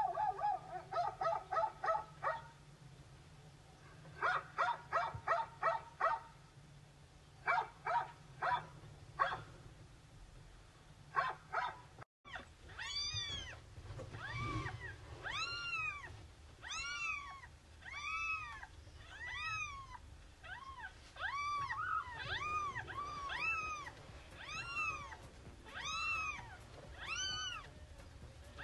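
A dog barking in quick runs of short barks, in several clusters. After a cut, a cat meowing over and over, about one rising-and-falling meow a second.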